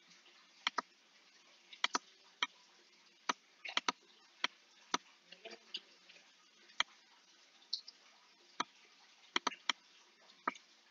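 Computer mouse button clicking, about a dozen sharp clicks that come singly and in quick pairs.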